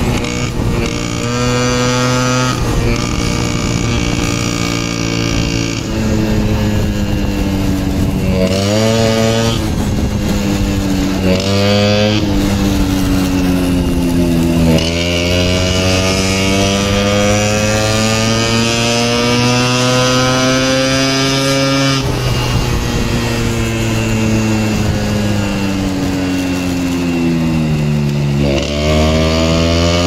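Small motorbike engine under way, its pitch climbing and dropping as the rider speeds up and slows: quick rises about 8 and 11 seconds in, a long steady climb through the middle, a slow fall, then a rise again near the end.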